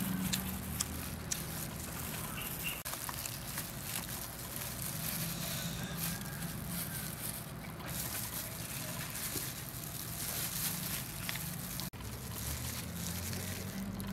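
A thin plastic food-handling glove crinkling and fresh lettuce leaves rustling as a lettuce wrap is folded by hand: a steady rustle with many small crackles.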